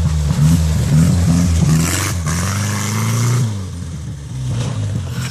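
Small old car's engine revving as the car climbs a muddy dirt track, its pitch rising and falling with the throttle. It eases off about three and a half seconds in, then picks up again.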